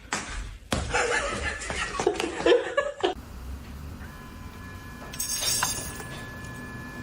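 A person laughing for about two seconds, starting about a second in, then a quieter stretch.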